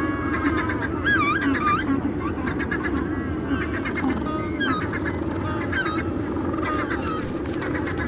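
Many birds honking and calling together, overlapping wavering calls over a steady low background rumble.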